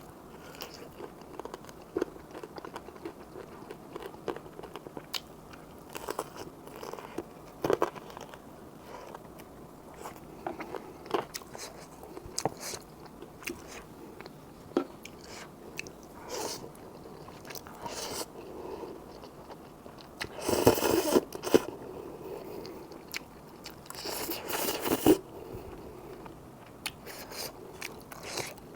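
Close-miked mouth sounds of eating cup ramen: wet chewing with scattered smacks and clicks. Two longer, louder slurps of noodles come about twenty and twenty-four seconds in.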